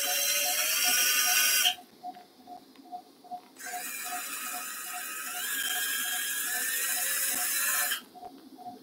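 Surgical power drill driving a steel pin into the dog's femur in two runs, one stopping about two seconds in and a longer one from about three and a half to eight seconds, its whine stepping up in pitch as it goes. A patient monitor beeps steadily about two and a half times a second throughout.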